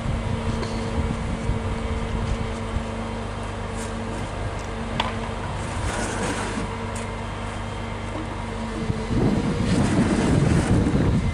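Steady engine hum of a crane running while it hoists a timber beam, with a constant low drone and two steady tones. About nine seconds in a louder, rough noise swells over it and lasts to the end.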